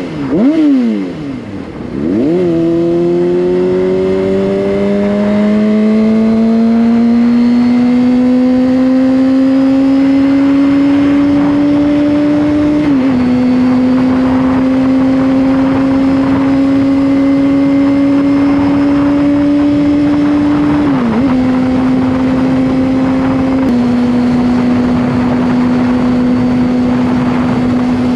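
Honda CBR600RR's inline-four engine under way. The revs rise and fall quickly a few times at the start, then the engine pulls steadily in gear with the pitch slowly climbing. It dips briefly twice, about halfway and later on, at upshifts, and holds a steady cruise, with a hiss of wind noise throughout.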